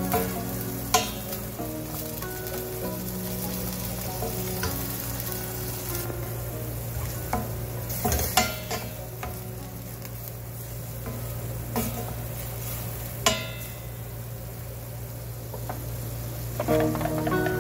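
Chicken strips sizzling as they fry in oil in a stainless steel pan, stirred with a wooden spatula that knocks sharply against the pan a few times.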